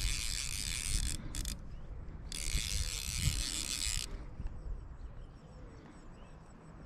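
Fly reel's click-and-pawl drag buzzing as a hooked large rainbow trout pulls line off it: one run of about a second at the start, two brief clicks, then a second run of about two seconds.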